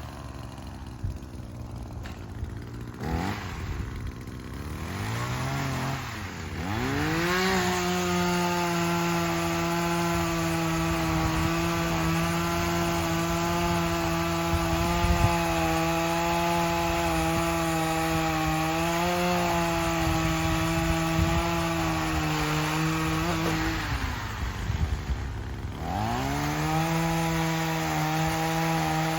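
Small Echo two-stroke saw engine blipping up twice, then held at high revs for about fifteen seconds as it cuts through tree limbs. It drops back briefly near the end and revs up again.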